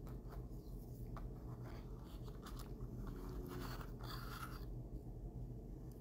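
Faint scraping and rubbing from hands handling a small wooden bunny cutout, over a low steady hum.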